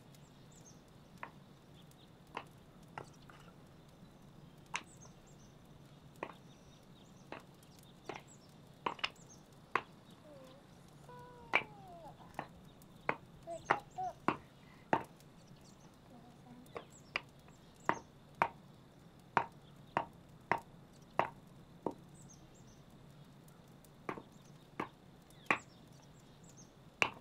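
A knife chopping food on a cutting board in single sharp strokes, about one a second, coming a little faster in the middle.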